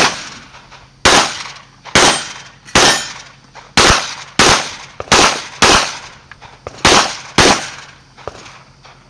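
A pistol fired in a string of about ten shots at uneven spacing, roughly half a second to a second apart, each shot followed by a short fading echo.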